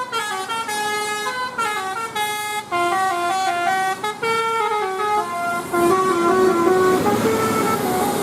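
Bus 'basuri' telolet horn, a multi-tone air horn, playing a melody: clear notes stepping quickly up and down one after another without a break.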